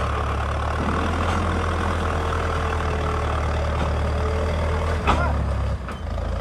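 Farmtrac tractor's diesel engine running steadily as it pulls a heavily loaded straw trailer. About five seconds in comes one short sharp sound with a brief wavering pitch, and the engine sound dips for a moment just before the end.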